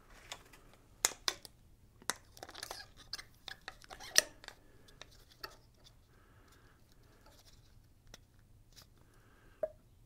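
Hands working an upright motorcycle fork tube and its tools. There are sharp clicks and knocks with scraping rustles, the loudest clicks about a second in and around four seconds in, followed by fainter handling sounds.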